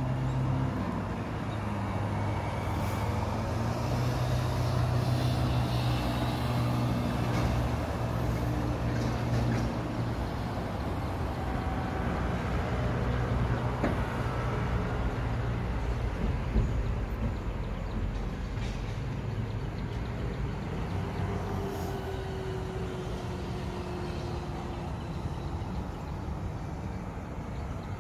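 Road traffic, with the low hum of heavy vehicle engines such as trucks and buses running steadily, a little louder in the first third.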